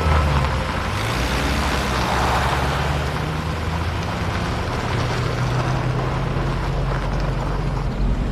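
Car engine running steadily while driving, a low drone with road noise.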